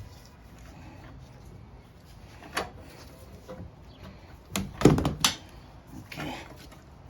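A few sharp knocks and clunks of parts and tools being handled while working on a lawn mower engine: a single knock, then a louder quick cluster of three or four, then a softer one near the end.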